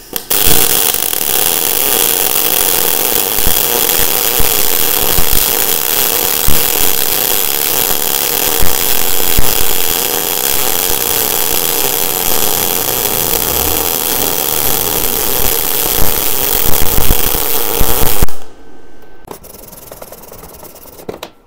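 Weldinger MEW 201 SYN ECO inverter welder wire-feed (MIG) welding a bead at a high power setting: a steady arc crackle and hiss for about eighteen seconds that cuts off suddenly. It is followed by faint scratching of a wire brush on the weld.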